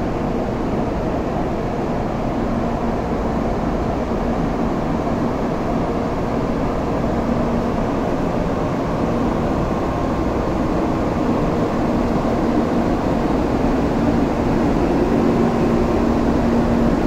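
Steady rumble and low hum of a Shinkansen train at a station platform, growing slowly louder.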